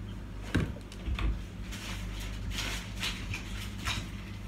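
Plastic bottle of vegetable oil set down on a kitchen counter with a knock about half a second in, followed by a few seconds of rustling and handling noises.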